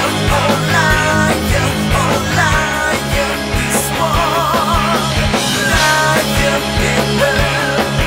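Rock band playing live: drums, bass and electric guitar, with a pitched lead line that repeats a sliding phrase and wavers in pitch about four seconds in.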